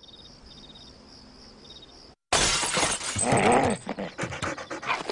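Faint night insects chirping in even pulses. About two seconds in, a sudden loud crash is followed by a bulldog's loud whining vocalizing and scattered shorter sounds.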